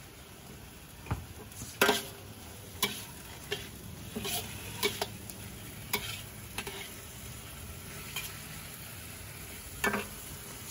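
Chicken pieces sizzling in a hot carbon steel wok while being stirred, with irregular clanks and scrapes of the utensil against the wok, the loudest a little under two seconds in.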